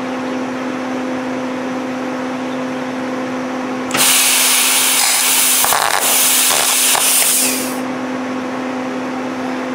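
RustBusters zinc spray-welding gun fired for about four seconds: a loud hissing blast of its 90 PSI atomizing air that starts about four seconds in and sputters briefly near the end before cutting off. A steady hum from the running machine sits underneath.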